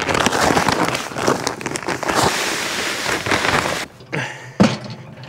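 Grass seed pouring: a loud, dense crackling patter of small seeds that stops abruptly about four seconds in, followed by softer rustling and one sharp knock.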